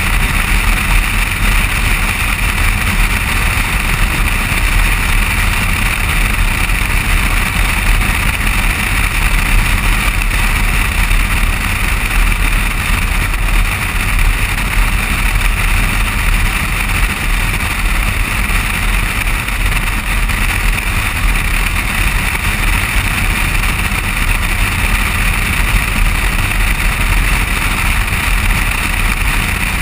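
Steady road and wind noise of a vehicle cruising on a paved road, heard through a camera mounted on the outside of the door: a constant low rumble with a rushing hiss over it.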